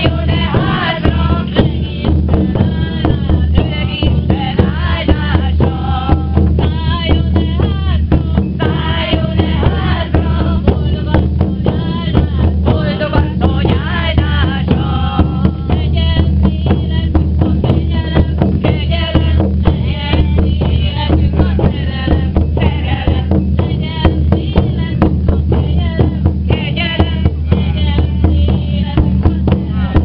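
A group of voices singing together, accompanied by rhythmic beating on hand-held frame drums.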